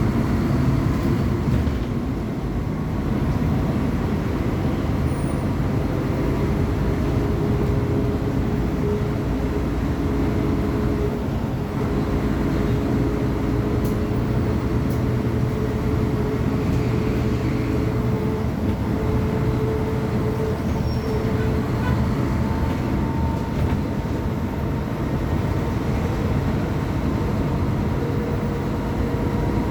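Diesel engine of a Mercedes-Benz O500UA BlueTec 6 articulated bus running steadily, a continuous drone with a whine that holds its pitch through the middle.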